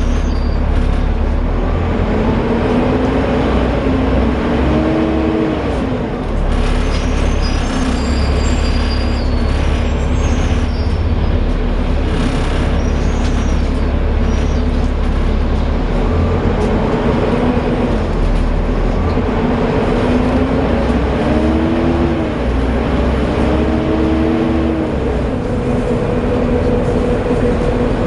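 Volvo B7TL double-decker bus running under way, its six-cylinder diesel giving a heavy low rumble. A pitched whine repeatedly rises and falls as the bus pulls through its gears: the loud vacuum-cleaner-like whine that earns the type its 'Hoover' nickname.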